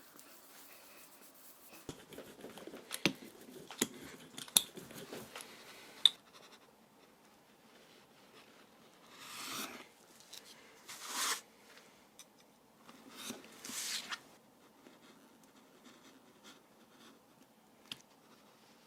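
Hand work on leather at a workbench: a run of light clicks and taps in the first few seconds, then three short scraping strokes near the middle, each lasting about half a second to a second.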